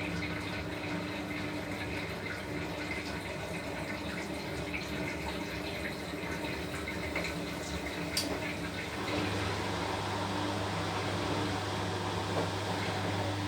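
Washing machine taking in water, a steady rushing of water filling the drum. Just after a click about eight seconds in, a steady low motor hum starts and the sound gets a little louder.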